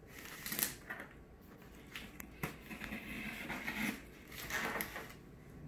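Packing tape and cardboard of a shipping box being picked at and scraped open: scattered scratches and small crackles, with a longer rasping scrape about three seconds in.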